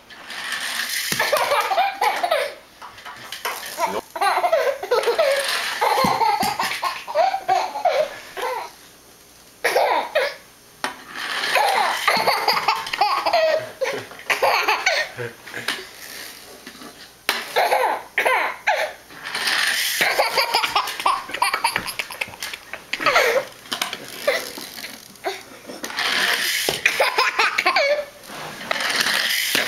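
A toddler laughing hard in repeated fits of belly laughter, with short pauses between them.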